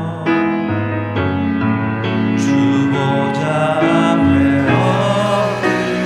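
Contemporary worship music led by a piano or keyboard, playing held chords that change about once a second.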